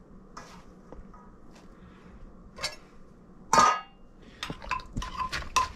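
Handfuls of shredded green papaya rustling as they are dropped into a wooden mortar. About halfway through, one loud, sharp metallic clink rings briefly. Near the end, a run of quick knocks, about three or four a second, begins in the mortar as the salad starts to be mixed.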